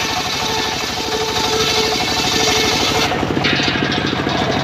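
A homemade engine-driven circular saw bench rips a wooden board lengthwise: the blade's cutting hiss sits over the steady pulsing of the engine. About three seconds in the cut finishes and the hiss drops away, leaving the engine and the free-spinning blade running.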